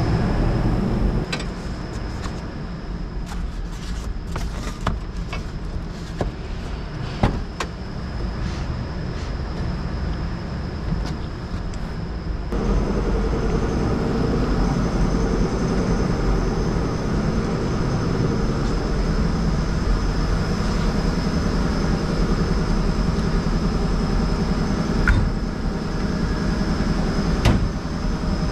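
Steady low rumble of a repair-shop garage, broken by scattered small clicks and knocks. A sharp metal click near the end as a hand reaches to a Mac Tools toolbox socket drawer.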